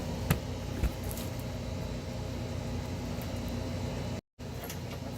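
Steady low mechanical hum with two small clicks in the first second, and a split-second gap of dead silence about four seconds in.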